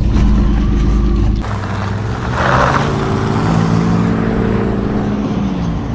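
Vehicle engine running as it drives, with a heavy low rumble that drops away about a second and a half in and a brief rush of noise a second later.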